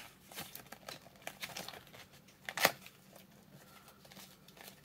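Paper instruction leaflet crinkling and rustling as it is handled, with scattered small rustles and one sharper crinkle about two and a half seconds in.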